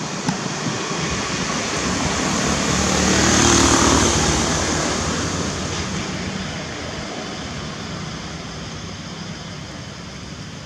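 A passing vehicle: engine noise that swells to a peak about three to four seconds in, then slowly fades away.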